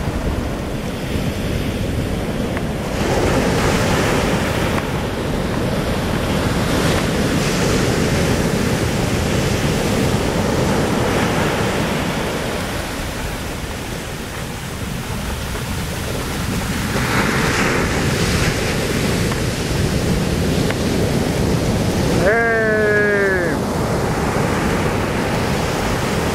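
Ocean surf washing in and out steadily, with wind on the microphone. About three-quarters through, a short pitched call falling in pitch cuts through for about a second.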